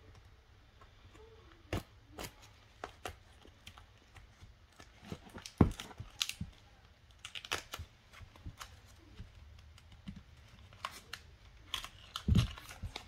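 Plastic shrink wrap on a boxed trading-card deck being cut and torn open with a small knife and handled: scattered crackles and short clicks, with a few sharper knocks, the loudest about halfway through and another near the end.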